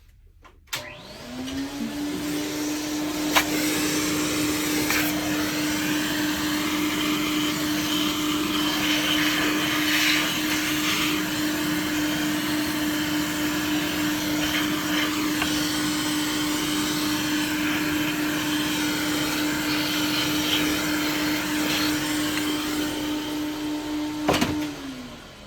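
Vacuum cleaner switched on with a click, its motor spinning up to a steady whine with a rush of air as it sucks dust off a part, then switched off and winding down near the end.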